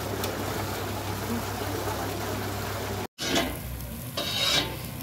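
Chapli kebabs sizzling in oil on a large flat iron tawa, a steady frying hiss. It breaks off suddenly about three seconds in, and a short louder rush of noise follows near the end.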